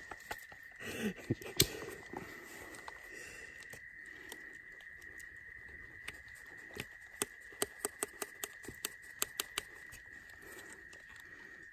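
Knife and small sticks working the split end of a green wooden frog-gig shaft: sharp clicks and snaps, a few about a second in and then a quick run of about ten past the middle. Under it, a steady high drone of night insects.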